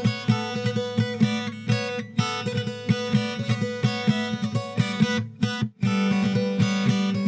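Background music on guitar: a steady run of plucked notes, a brief break about five and a half seconds in, then a strummed chord ringing on.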